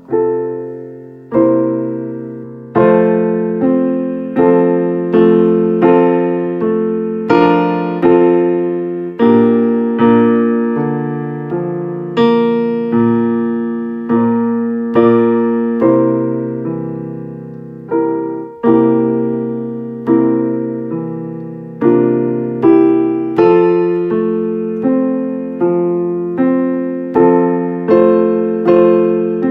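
Solo piano-type keyboard playing a slow tune in full chords. Chords are struck about once or twice a second, and each one rings and fades before the next.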